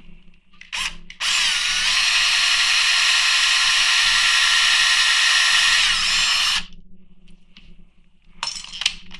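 Small power drill with a 1/16-inch bit drilling the first pilot hole in a diecast toy car. It starts about a second in, runs at a steady high whine for about five seconds, then stops.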